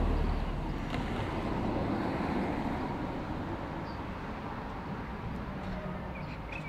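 Steam locomotive running some distance off, a steady rumble with no clear exhaust beat, slowly getting quieter. A few small bird chirps come near the end.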